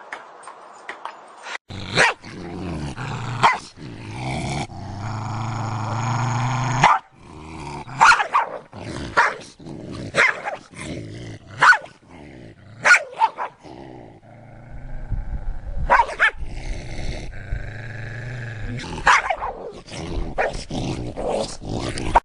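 Dogs barking over and over in short sharp barks, with a long low growl a few seconds in.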